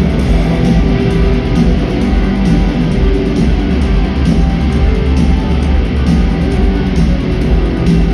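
Rock band playing live and loud: strummed electric guitars over bass, with no singing.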